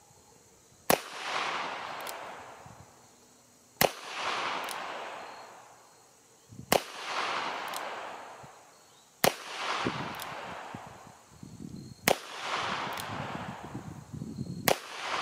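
Six shots from a Taurus Model 66 .357 Magnum revolver firing .38 Special loads, spaced about three seconds apart. Each sharp report is followed by a rolling echo that fades over a second or two.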